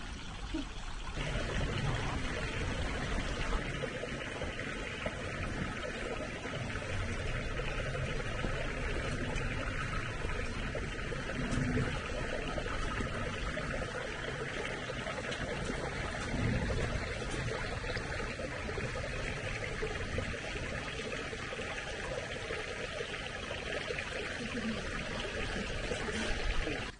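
Running water from a small trickling stream, a steady hiss that cuts off suddenly at the end.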